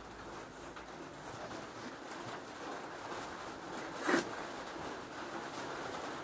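A person blowing her nose into a tissue: one short, sharp blast about four seconds in, over faint breathing.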